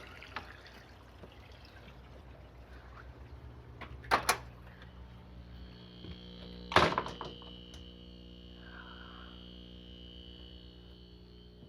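Two short sharp knocks, about four and seven seconds in, over a faint watery background; after the first knock a steady hum comes on, joined shortly after by a steady high whine.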